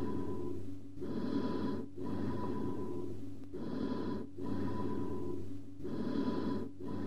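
Amphoric bronchial breath sounds over the chest: a low-pitched, hollow breath sound with high-pitched echo-like overtones. There are about three breaths, with a short silent gap between inspiration and expiration. This sound is heard over a large smooth-walled cavity or a communicating hydropneumothorax.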